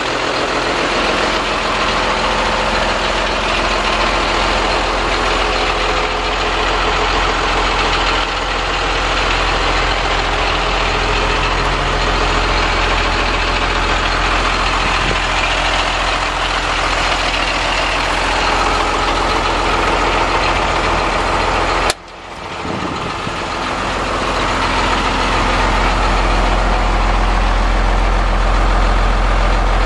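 1996 Ford F800 dump truck engine idling steadily. About three-quarters of the way through there is a sharp click, the sound drops out suddenly, and it builds back up over a few seconds.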